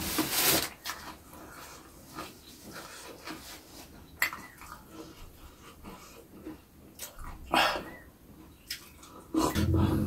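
Mouth sounds of eating: chewing with scattered wet clicks, and a drink of water from a glass mug partway through. Louder, heavier chewing starts near the end.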